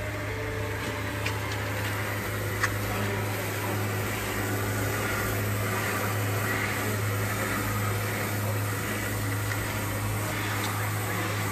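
A steady low machine hum under an even hiss, with a few faint clicks and one sharp click about two and a half seconds in.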